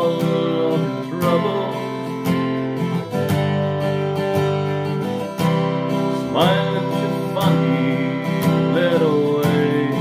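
Acoustic guitar strummed in steady chords, with a pitched melody line gliding between notes above it a few times.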